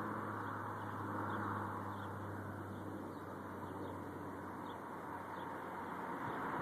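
Outdoor background: a low steady hum that fades after about three seconds, over a faint haze of noise, with faint bird chirps now and then.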